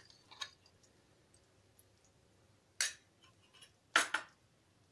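A small glass bowl clinks twice against steel, two sharp knocks about a second apart, with faint ticks and quiet between them.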